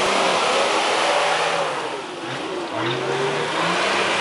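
Off-road 4x4's engine revving hard under load as it claws through mud, the revs rising and falling. The revs drop back about two seconds in, then climb again just before three seconds.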